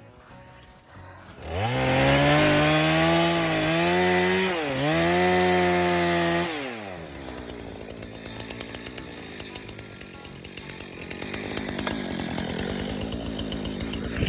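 Jonsered CS2255 two-stroke chainsaw revved up to full throttle about a second and a half in, held for about five seconds with a brief dip midway, as it cuts into a birch trunk. It then drops back and runs at a lower, steady speed, rising a little near the end.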